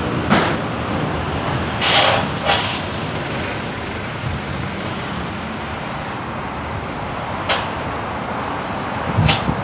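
A hand tool knocks and scrapes on the steel frame of a Jeep Wrangler chassis, giving five short, sharp sounds spread over steady background noise.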